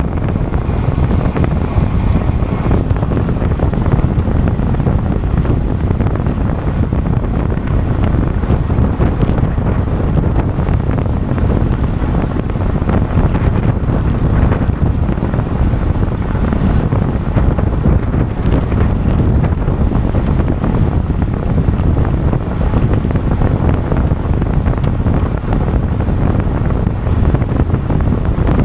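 Steady wind noise buffeting the microphone of a camera riding along on a racing bicycle at time-trial speed, a low, even rush.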